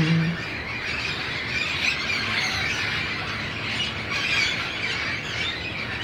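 A flock of wild parrots squawking and chattering, many birds calling at once into a continuous din.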